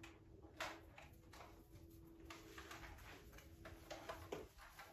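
Faint, irregular light clicks and rustles at near silence: a string of Christmas lights being wound through the plastic branches of an artificial tree, with a faint steady hum underneath.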